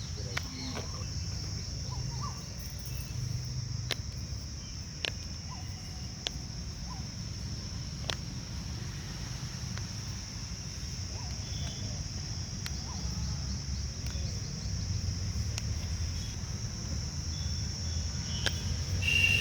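Crickets chirring steadily and high-pitched over a low hum, with a few sharp clicks scattered through.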